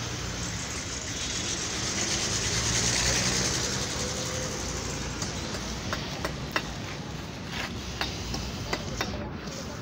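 A steady background rumble and hiss, then from about five seconds in a run of sharp, separate knocks and taps on wood as the plywood table and its wooden frame are handled.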